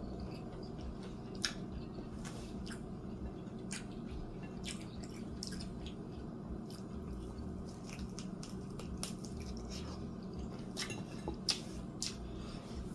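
Close-miked eating: chewing with scattered wet mouth clicks and smacks at irregular intervals, over a steady low hum.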